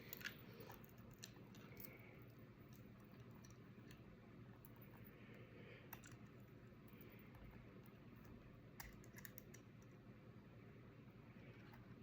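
Faint, scattered clicks and handling noise of the watch's packaging being worked at by hand, over a low steady background hum.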